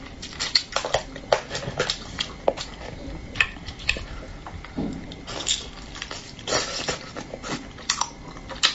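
Close-up eating sounds of a person chewing braised fish: wet mouth smacks and sharp clicks at an irregular pace, with a couple of longer, noisier sounds just past halfway.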